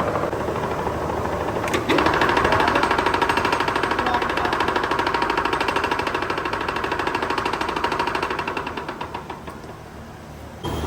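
Factory machine running with a fast, even rattle. It kicks in suddenly about two seconds in, then fades and slows from about eight seconds as it winds down.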